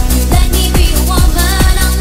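Eurodance music playing: a steady four-on-the-floor kick drum, a little over two beats a second, under synth bass and a synth melody.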